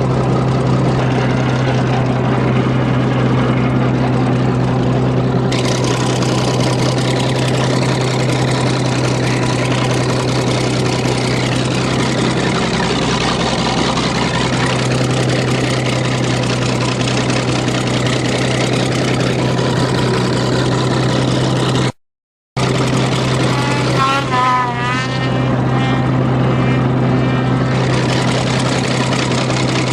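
An engine running steadily with an even low hum that does not change pitch. It cuts out abruptly to silence for about half a second past the two-thirds point, then resumes just the same.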